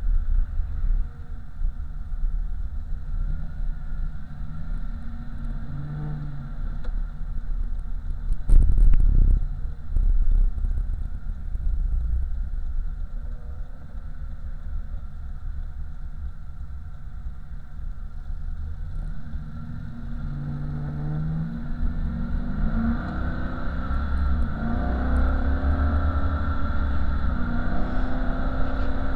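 Chevrolet 5.3-litre LS V8 of a swapped 1987 Oldsmobile Cutlass, heard from inside the cabin while driving: a low rumble that eases off midway, then rises in pitch as the car accelerates. There is a sharp thump about nine seconds in.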